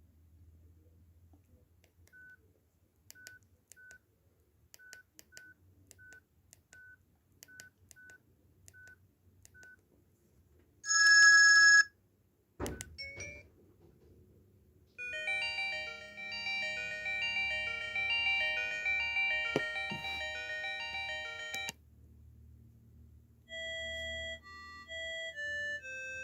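Electronic imitation Nokia C1-01 mobile-phone ringtones played one after another. First come scattered single beeps at the same pitch. Just before halfway there is a loud short alert tone and a click, then a busy multi-note ringtone melody, and near the end a simpler beeping tune.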